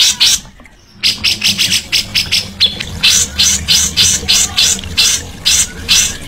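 Recorded songbird calls: a fast series of short chattering notes, about four or five a second. They break off for about half a second near the start, then carry on.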